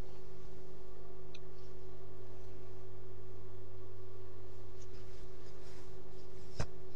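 Cloth being handled and folded with faint rustles, over a steady low electrical hum. One sharp click sounds near the end.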